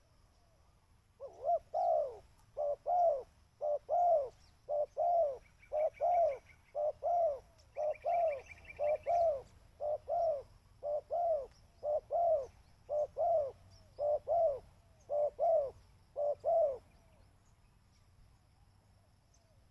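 Spotted dove (tekukur) cooing: a long, regular run of about fifteen rounded two-part coos that stops a few seconds before the end. Two faint, brief high trills sound in the middle.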